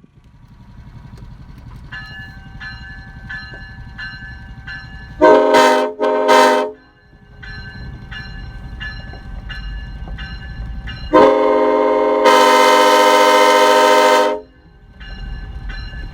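Truck-mounted multi-chime train air horn. It gives two short blasts about five seconds in, then one long blast of about three seconds, and starts another at the very end. Under it runs the low rumble of the vehicle, and a faint bell-like ding repeats about one and a half times a second between the blasts.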